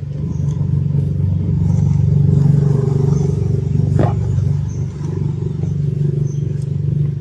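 An engine running steadily at an even speed, a low, loud hum. A short knock about four seconds in.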